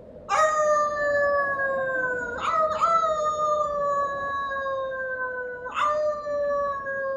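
Wolf howling: one long, drawn-out howl that slowly falls in pitch, lifting again briefly twice as it carries on.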